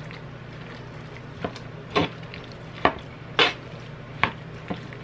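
Metal spoon stirring chunky guacamole in a plastic molcajete-style bowl: a handful of irregular scrapes and taps of the spoon against the bowl, starting about a second and a half in, over a steady low hum.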